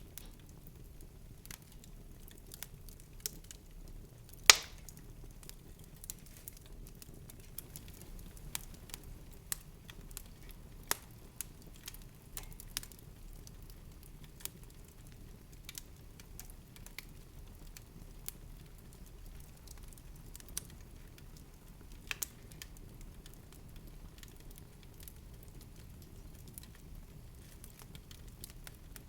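Irregular light crackling and clicks over a low steady hum, with one sharp, much louder pop about four and a half seconds in.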